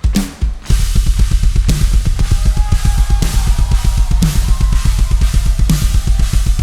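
Live worship band playing an instrumental section: after a few spaced heavy drum hits, the drum kit kicks into a fast driving beat about a second in, with bass drum, snare and cymbals over bass and faint keyboard or guitar lines.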